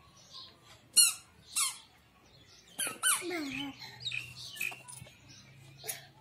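A toddler's squeaky shoes squeaking with his steps: short high-pitched squeaks in pairs about half a second apart, twice.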